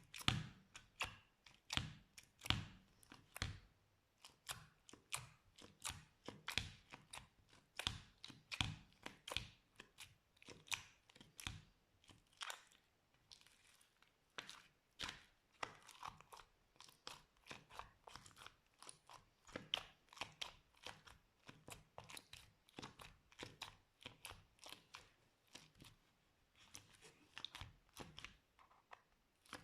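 Slime being squished and worked, giving a steady run of crunchy crackles and pops, several each second, that starts suddenly.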